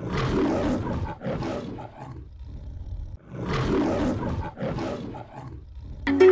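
A lion roaring twice, the roar of the MGM film-studio logo. Each roar comes in two rough bouts, with a pause of about a second between the roars. Plucked-string music cuts in right at the end.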